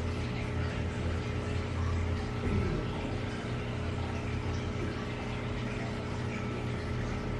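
A steady low mechanical hum, like a room fan or air-conditioning unit, runs unchanged throughout.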